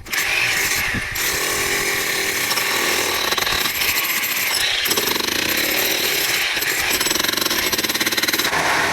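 Loud, steady, rapid mechanical hammering from a construction machine or power tool at work.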